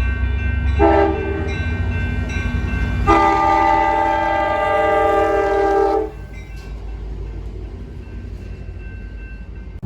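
A horn sounds a short blast and then a long blast of about three seconds, over a steady low rumble.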